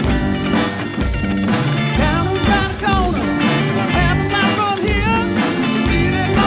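Live band playing a rock song: strummed acoustic guitar and electric bass guitar with a steady beat. A man's lead vocal comes in about two seconds in.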